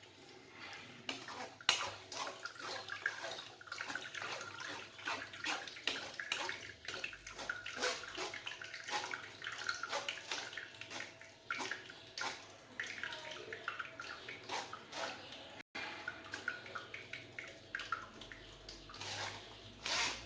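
A spoon stirring and scraping blended lemon pulp in a strainer, with irregular small clicks and scrapes, while the juice trickles and drips through.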